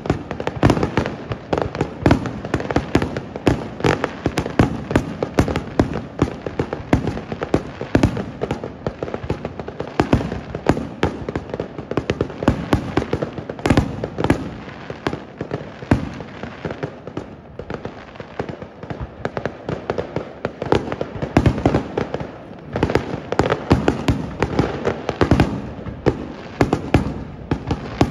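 Aerial fireworks shells bursting in a dense, rapid run of bangs, several a second, as in a display's finale barrage. The bursts thin out a little about two-thirds of the way through, then build again.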